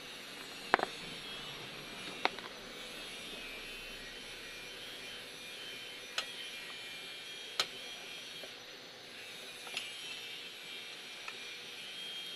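About six short, sharp clicks or taps at uneven intervals over a steady background hiss, the first and loudest a little under a second in.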